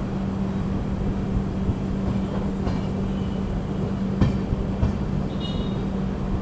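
Passenger train running, heard from aboard a coach: a steady low rumble with a constant hum and occasional clacks, the sharpest one about four seconds in.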